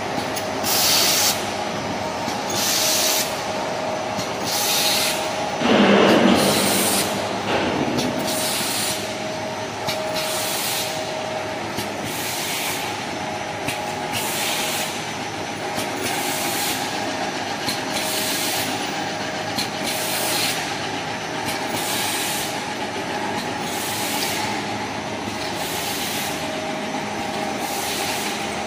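Double disc grinding machines running in a workshop: a steady mechanical hum with short hissing bursts about every two seconds, like compressed air venting. A louder, lower rush of noise comes about six seconds in.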